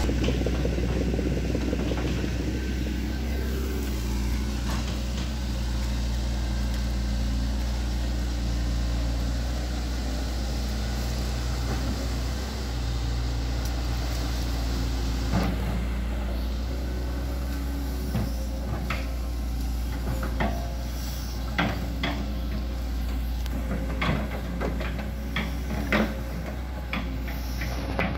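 Hitachi ZX110MF excavator's diesel engine running steadily. From about halfway on, repeated sharp knocks come from the machine as it works its bucket on the muddy road.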